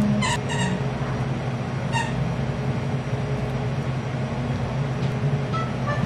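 A steady low mechanical hum, with short high pings: two in quick succession near the start and one about two seconds in.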